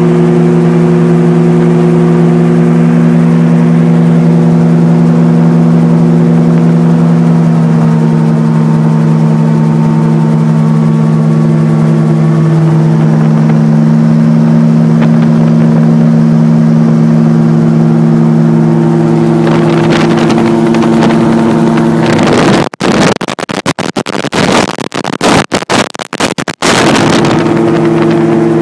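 RAF 2000 GTX SE gyroplane's engine and pusher propeller droning steadily in flight, heard from the cockpit. About twenty seconds in, a rushing noise builds, and for a few seconds the sound breaks up in sharp crackles and dropouts, typical of wind buffeting the microphone, before the steady drone returns.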